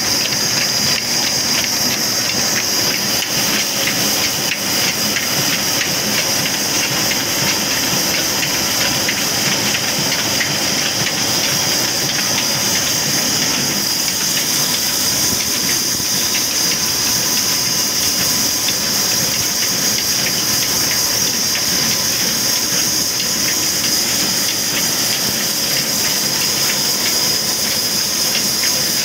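Old diesel engine running steadily, driving flat belts over spinning pulleys to a vertical band saw, with a loud constant high hiss over the machinery.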